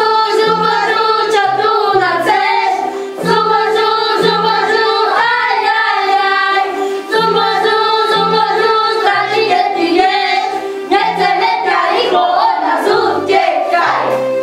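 Children singing a song together over recorded backing music with a repeating bass line.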